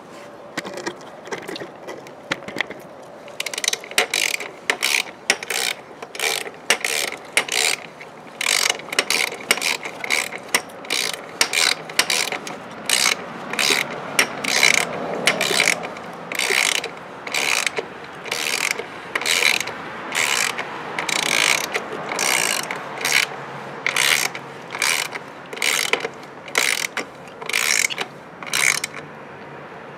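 Hand socket ratchet clicking in repeated short back-and-forth strokes, roughly one or two a second, as an exhaust mounting bolt is run down tight. The strokes are sparse for the first few seconds, then keep a steady rhythm until near the end.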